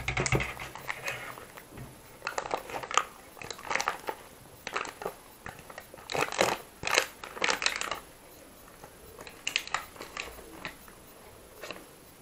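Aluminium foil takeaway container crinkling and crackling in irregular bursts as it is tipped and shaken to empty rice onto a steel plate, loudest about halfway through.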